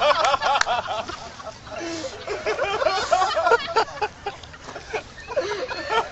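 A person laughing in rapid 'ha-ha-ha' bursts, three bouts with short pauses between.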